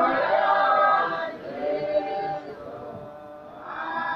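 A church congregation singing together without instruments, in long held notes. The singing dies down about a second and a half in, and a new phrase swells up near the end.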